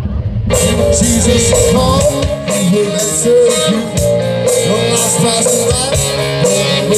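Live rock band playing electric bass, electric guitar and drums, with a man singing. For the first half second there is only a low rumble, then the music cuts in suddenly.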